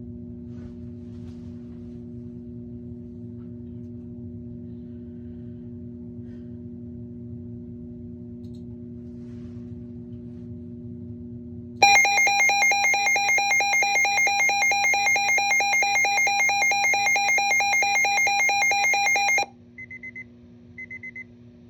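A steady low hum, then about twelve seconds in a Midland WR-120B weather radio's alert alarm goes off. It is a loud, rapidly pulsing shrill tone lasting about seven seconds and signals a weather warning, here a severe thunderstorm warning. It cuts off and is followed by two short high beeps.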